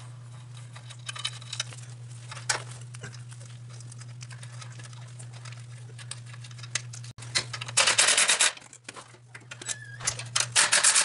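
Hand tools at work on the engine mounting bolts: scattered light clicks and clatter over a steady low hum, then two loud runs of rapid clicking, the first a few seconds before the end and the second at the very end.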